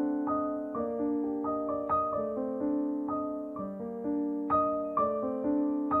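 Gentle instrumental piano music: single notes struck about twice a second and left ringing over one another.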